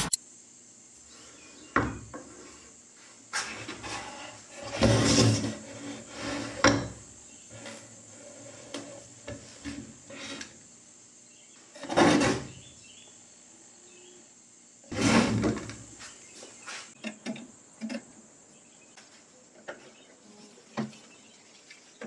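Old Handy Junior button press being handled on a wooden workbench: scattered knocks, clunks and scrapes of metal and wood, with three louder clatters spread through. A faint steady high hiss lies underneath.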